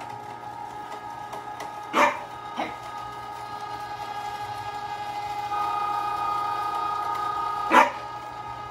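1 HP Carnivore electric meat grinder running with a steady whine that gets louder about halfway through. A dog barks three times: twice about two seconds in and once near the end.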